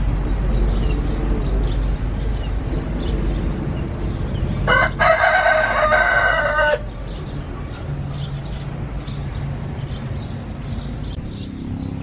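Thai gamecock rooster crowing once, a single crow about two seconds long, about five seconds in. Under it runs a steady low background rumble, with faint high chirping throughout.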